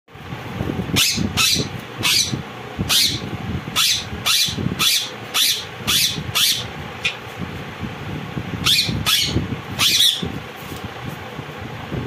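Indian ringneck parakeets screeching during a squabble: about a dozen short, harsh, high calls in quick succession, stopping about two seconds before the end.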